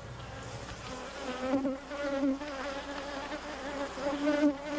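Honeybees buzzing at the hive, a wavering wing-beat hum that comes in about a second and a half in and grows louder near the end.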